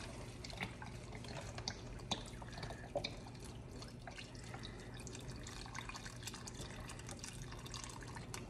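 Beef stock and water poured from a carton into a saucepan of black-eyed peas, a soft trickling and splashing of liquid, with a few light clicks in the first three seconds over a steady low hum.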